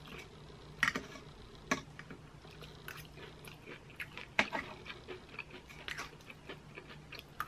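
Close-up chewing and crunching of crispy baked mozzarella and corn, with a fork scraping and clicking on a metal baking sheet as the golden edges are picked off. It comes as a run of short, separate crunches and clicks, a few of them sharper than the rest.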